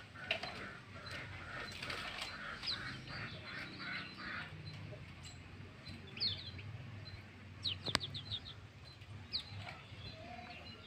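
Kecial kuning, a small yellow songbird, giving short high chirps, single ones spaced out and a quick run of about five a little before the eight-second mark. A denser raspy chatter fills the first four seconds, and one sharp click comes near 8 s.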